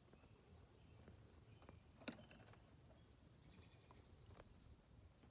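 Faint birds chirping, with high thin trills that come and go, over a quiet background. One sharp click about two seconds in.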